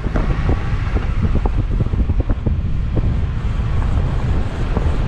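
Wind buffeting the microphone over the low rumble of a car driving along a snow-covered road, with many short crackles throughout.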